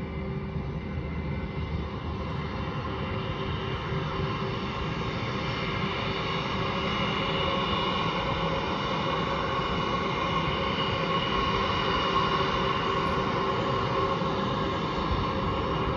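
Airbus A320 jet engines whining at low taxi power as the airliner rolls past, a steady rumble under several held whining tones that slowly grows louder.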